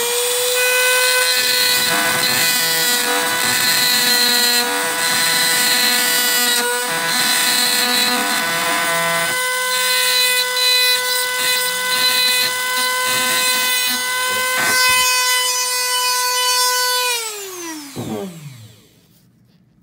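Rotary tool with a small cutoff disc running at a steady high whine, grinding against a solid ceramic GPS patch antenna, then winding down near the end. The disc makes no headway into the hard ceramic block.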